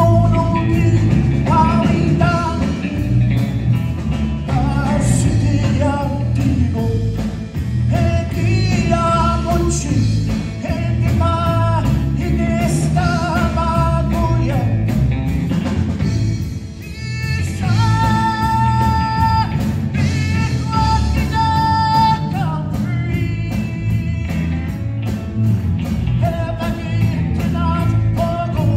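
A live band playing a song: a man singing lead over acoustic and electric guitars and drums, with a steady beat, amplified through PA speakers.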